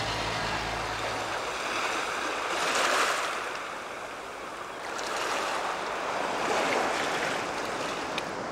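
Small sea waves washing in over a sandy shore, the rush of water swelling and ebbing twice: about three seconds in and again near seven seconds.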